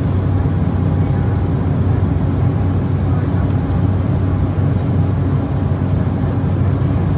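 Steady cabin noise of an Embraer E190 in flight. The GE CF34-10E turbofans and the airflow make a deep, even rumble, with a faint steady hum above it.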